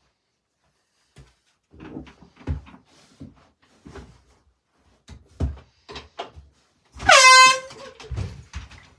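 An air horn blasts once about seven seconds in: a loud, shrill blare lasting under a second, its pitch sweeping up quickly at the start. Soft scattered knocks and thumps come before it, and a few low thumps follow.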